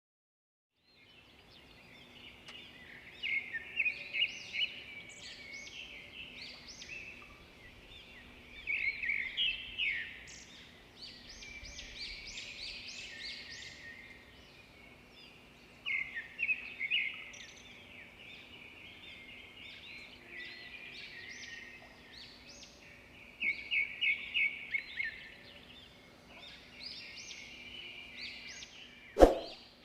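Birds calling in repeated bursts of rapid, high chirps every several seconds, over a faint steady hum. A sharp click comes near the end.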